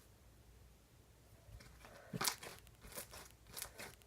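Pink slime with little foam beads being squished and stretched by hand, giving a run of soft crackling, crunching pops that start about a second and a half in.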